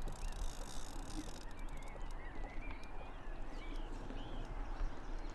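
Small birds chirping over a steady low rumble of wind on the microphone.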